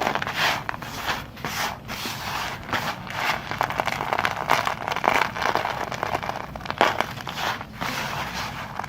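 A blade cutting through a bar of soft soap: a run of short, crisp scraping crackles, irregular, about one or two cuts a second.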